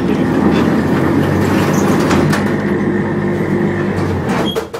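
Steady mechanical hum with a few held tones inside a tram car standing still. It fades away near the end with a couple of clicks.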